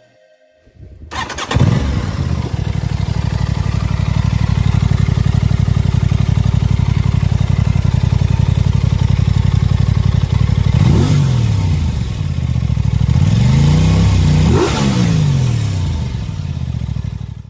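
Aprilia RS 660's 659 cc parallel-twin engine with 270-degree firing order, starting up about a second in and then idling steadily. It is blipped briefly about eleven seconds in, then revved up and back down near the end.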